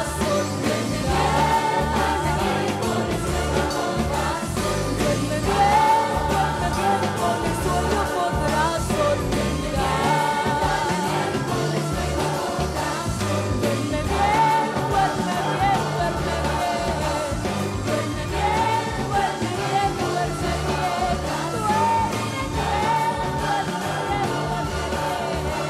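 Rock-opera music: band accompaniment under singing voices with a choir, the melody returning in phrases about every four seconds, no words clear enough to make out.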